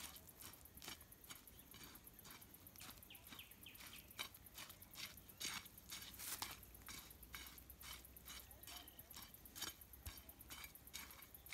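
Faint, repeated scraping strokes of a long-handled digging tool working damp, loose earth, roughly two a second. The dug-out soil is being mixed into a mud paste.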